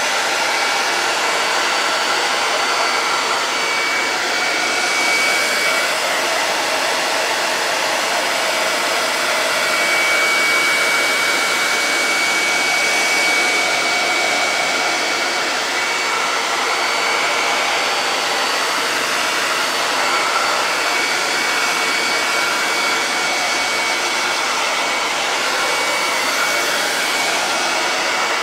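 Handheld hot-air blower running steadily: an even rush of air with a thin, steady whine over it.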